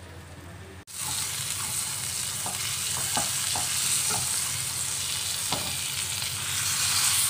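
Whole pork leg sizzling in a non-stick pan of sautéed garlic, coriander root and spices. It is turned with a wooden spatula that clacks and scrapes against the pan a few times. The sizzle comes in suddenly about a second in.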